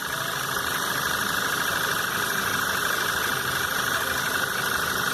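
Volkswagen Jetta 2.0 TSI turbocharged four-cylinder engine idling steadily, with a fine rapid ticking and a steady high whine over it. It runs without the strange noise it came in with, now cured by the repair.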